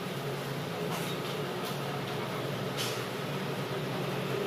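Truck engine running at a steady idle, a low drone, with a short hiss about three seconds in.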